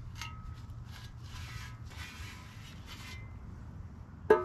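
Gloved hands scrubbing tiller drive-chain parts in a bucket of solvent: soft rubbing and swishing over a steady low hum. Near the end a sudden loud pitched sound with several tones cuts in.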